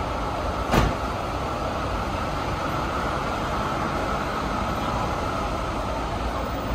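Melbourne tram running along a street track, with one sharp clunk about a second in, then a steady rolling noise.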